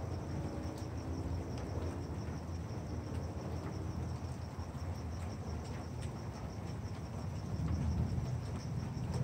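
Crickets chirping in steady pulses, with a low rumble that grows louder near the end.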